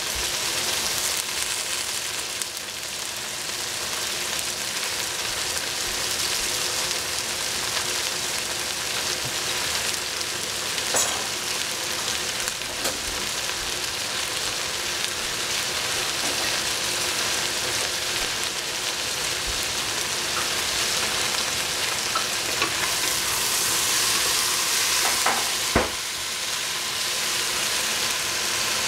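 Julienned potato and celery sizzling steadily in cooking oil in a stainless steel pot. Two sharp knocks are heard, one about a third of the way in and one near the end.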